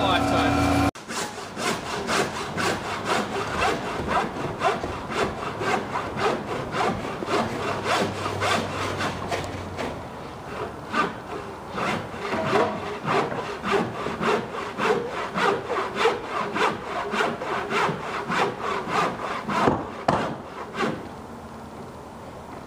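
Hand saw cutting through a timber deck beam in steady back-and-forth strokes, about two to three a second, stopping near the end. A steady machine sound cuts off abruptly about a second in, before the sawing.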